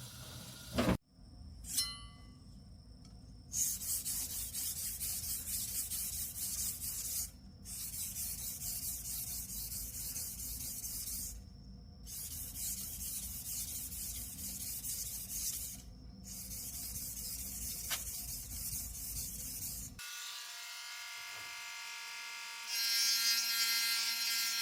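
Abrasive rubbing on a kitchen knife's steel blade, as in polishing off rust or working it on a stone, in four spells of about four seconds with short pauses between. A knock comes about a second in, and music takes over near the end.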